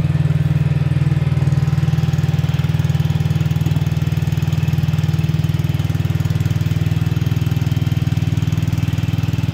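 Kingtech A33HR coconut milk extractor running steadily while pressing grated coconut, its drive making a loud, even low hum.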